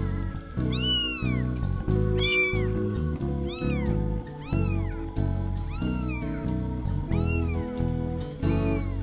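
A two-week-old kitten mewing over and over, about seven short high calls, each rising then falling in pitch, over background guitar music.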